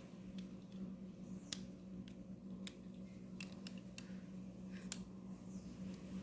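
Sharp, separate plastic clicks, about six scattered over a few seconds, from Lego pieces being handled, over a steady low hum.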